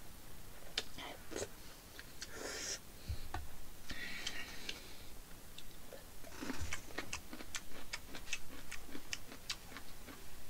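Close-miked chewing of a very large mouthful of food in black-bean sauce, with wet lip-smacking clicks. The clicks come thick and fast, about two or three a second, in the second half.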